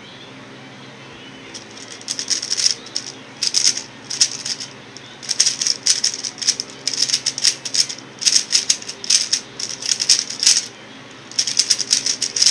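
X-Man Tornado V1 3x3 speed cube being turned fast: bursts of rapid plastic clicking from quick strings of turns, broken by short pauses, starting about two seconds in. A steady hum from an electric fan runs underneath.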